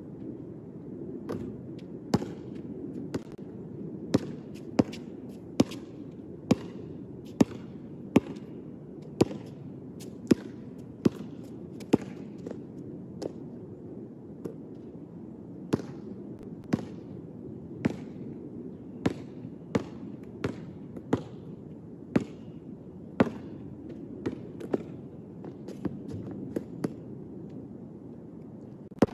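A basketball bouncing on a hard outdoor court: sharp single bounces about once a second at an uneven pace, with a pause of a few seconds midway, over a steady low background noise.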